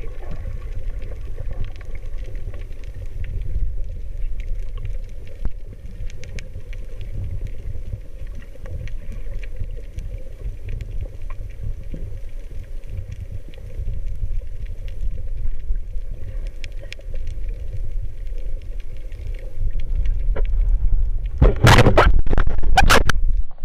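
Underwater sound heard through an action camera's waterproof housing: a steady muffled low rumble with scattered faint clicks. Near the end, a quick cluster of loud knocks and scrapes.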